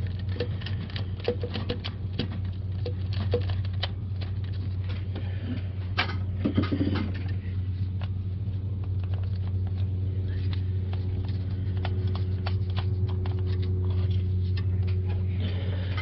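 Irregular light clicks and taps of a small socket wrench working the cam sensor's mounting bolts and of the plastic sensor being worked loose from the synchronizer housing, over a steady low hum.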